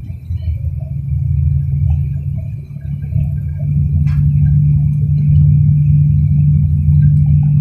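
Low, steady rumble of a car driving at highway speed, heard from inside the cabin. A droning hum grows a little louder about halfway through, and there is one light click about four seconds in.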